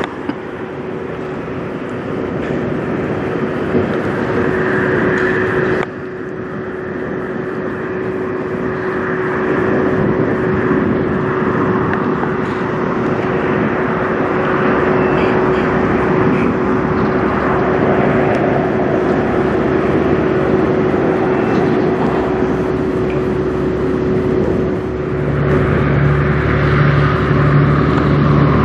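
Semi truck's diesel engine running as the truck rolls slowly past, with one steady hum held throughout. Near the end a second semi's engine comes in with a deeper, evenly pulsing note.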